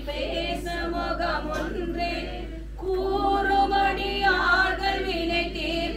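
Voices singing a Tamil devotional hymn, held notes that waver in pitch, with a brief lull between phrases a little before the halfway point.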